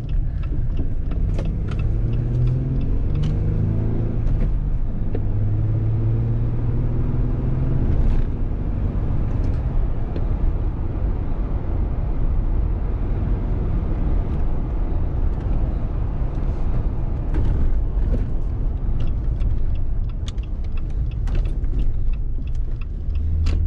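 Cabin noise of a 2018 Jeep Wrangler JL Rubicon on the road: a steady rumble of its BF Goodrich All-Terrain tyres and wind over the body, with the engine note climbing in the first few seconds. Scattered light clicks and knocks from the ride.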